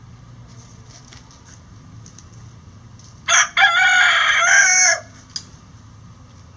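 Lavender Old English Game bantam rooster crowing once, about three seconds in: a short opening note, a brief break, then a long wavering call of about a second and a half.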